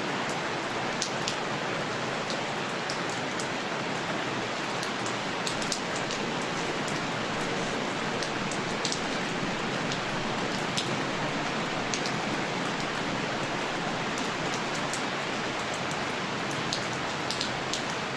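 Recording of steady rainfall: an even hiss of rain with scattered sharp drop ticks.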